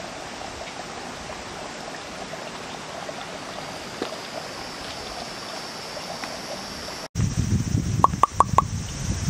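Steady rush of stream water. After a sudden cut about seven seconds in, wind buffets the microphone and four short high chirps come in quick succession.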